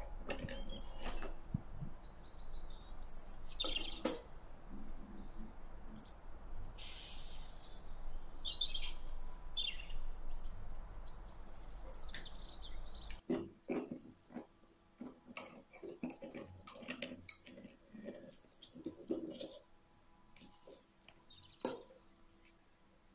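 Birds chirping over a steady low hum, with a few sharper taps among them. About thirteen seconds in, the hum cuts off and scattered light clicks and ticks follow.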